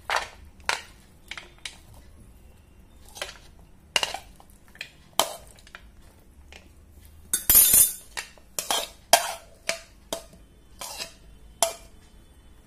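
Metal spoon knocking and scraping against a plate while spooning out and spreading mixed Kurkure chaat. It is a string of separate clinks, with one longer, louder scrape about halfway through.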